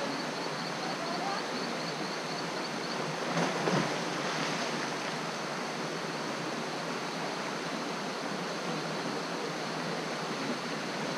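Steady rush of water from a small waterfall spilling over rocks into a river pool, swelling briefly louder about three and a half seconds in. A faint, rapid, high ticking runs over it for the first couple of seconds.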